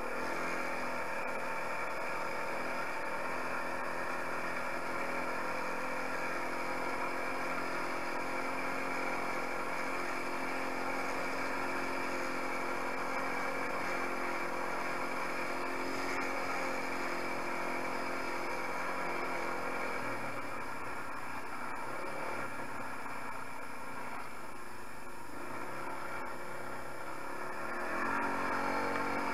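250 cc quad ATV's engine running steadily while riding over a dirt track; the engine note drops about twenty seconds in and picks up again near the end.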